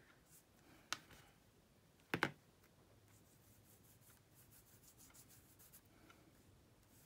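Fingertips rubbing gilding wax over die-cut cardstock, a faint papery rubbing, with two short taps about one and two seconds in.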